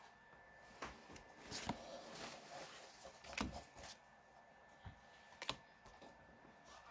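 Faint handling of a stack of Pokémon trading cards, the cards sliding and flicking against each other as they are sorted through by hand, with a few light snaps spread through.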